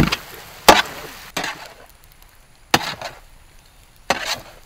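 Long-handled stirring ladle knocking and scraping against a large iron kadai full of chicken gizzard fry, five sharp strokes at about one to one and a half second intervals.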